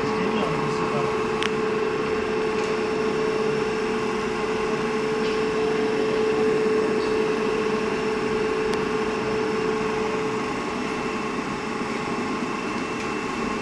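Large electric motor running steadily: a constant mechanical hum with a steady whine that fades out about ten seconds in.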